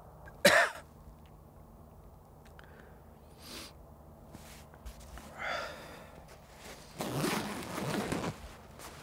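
A man's short, loud sigh with a falling pitch about half a second in, then the rustle of a sleeping bag's heavy fabric being pulled open for about a second near the end.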